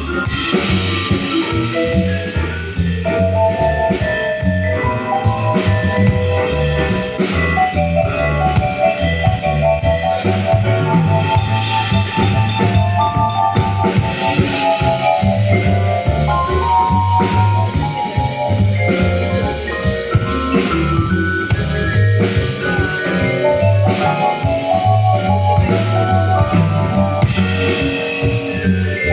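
Jazz quartet playing live: a drum kit keeps a steady beat under a repeating bass line, with a melody of bright notes on top.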